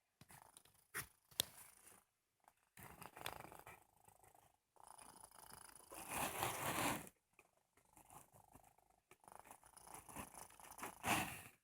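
Snoring: about five slow, noisy breaths, one every two seconds or so, with the loudest in the middle and just before the end.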